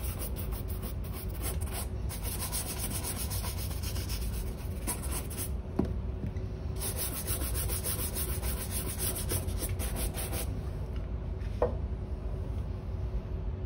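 Horsehair shoe brush swept rapidly back and forth over a leather shoe upper, buffing the polish: a fast run of bristle strokes with a short pause around the middle. The brushing stops about ten seconds in, and a single knock follows.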